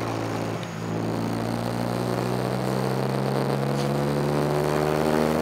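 Car engine heard from inside the cabin while driving, a steady drone that dips briefly just under a second in, then climbs slowly in pitch as the car speeds up.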